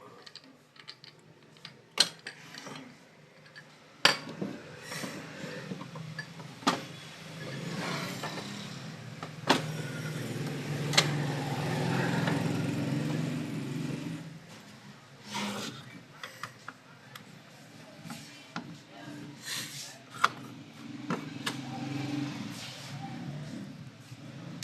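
Scattered clicks and knocks of a plastic toner cartridge being handled and worked apart, with a low hum that rises for several seconds in the middle.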